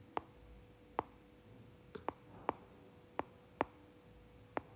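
Stylus tip tapping and clicking on a tablet's glass screen while writing by hand: about eight sharp, light clicks at irregular intervals.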